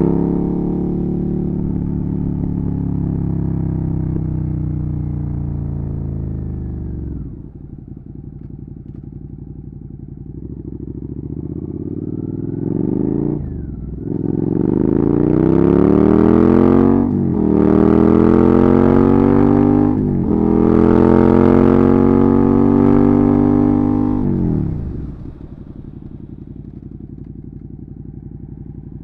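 Suzuki SV650's 90-degree V-twin through an aftermarket Dominator exhaust: the revs fall away to a low, steady run, then the bike pulls away hard, the pitch climbing and dropping sharply at each of three gear changes. Near the end the throttle closes and the engine drops back to a low, steady run.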